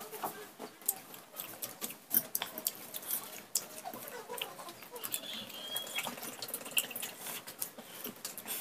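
Close-up eating sounds: wet chewing and lip smacking, with fingers picking food from a steel bowl, making a steady run of small clicks and smacks.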